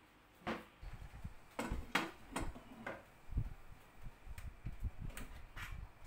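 Irregular light clicks and knocks, about a dozen, with dull low thumps between them, from a plywood folding desk and its fittings being handled and fitted together by hand.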